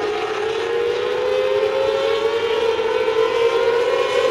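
Several winged mini sprint cars racing on a dirt oval, their engines held at high revs in a steady, overlapping whine that slowly rises in pitch.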